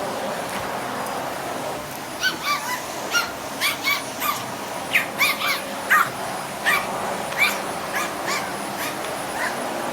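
Pomeranian spitz yapping at a vacuum cleaner: many short, high-pitched yaps in quick runs, starting about two seconds in, over the steady drone of the running vacuum.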